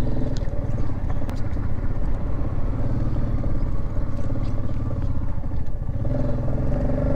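Motorcycle engine running steadily while being ridden, with an even rush of road noise.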